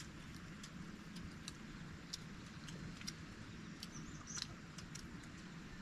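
Faint outdoor background: a steady low rumble with scattered sharp clicks, and a few short high chirps about four seconds in.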